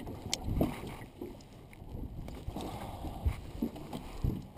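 Quiet handling sounds of a fishing landing net and line being worked by hand on a boat deck, with small clicks and a couple of low bumps.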